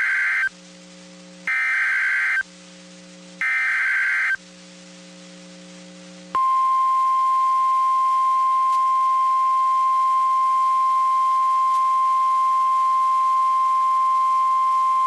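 NOAA Weather Radio emergency alert: the warbling digital data bursts of the SAME header, the end of one and two more, each about a second long and a second apart. After a short gap, the steady single-pitch 1050 Hz warning alarm tone holds for about nine seconds, marking the start of a flash flood warning.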